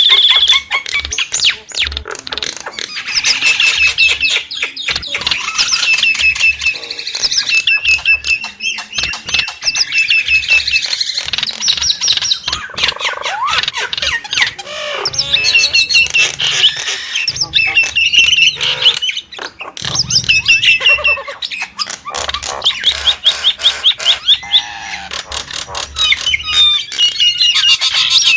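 Nias hill myna (Nias starling) calling: fast runs of short, high chattering notes mixed with clicks, squawks and a few gliding whistles, with brief pauses between bouts.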